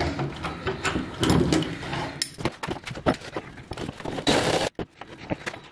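Workshop handling noise from a steel C-clamp and a wooden door frame: scattered knocks, clicks and scrapes as the clamp is worked to press a nut into the wood. About four seconds in comes a brief half-second rushing burst, then the sound drops out abruptly.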